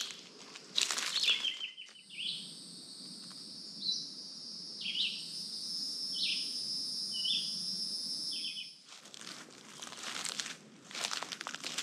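Footsteps crunching through dry leaf litter, stopping about two seconds in. Then comes a steady high insect drone, with a bird giving a series of short downward-slurred calls. Footsteps in the leaves start again near the end.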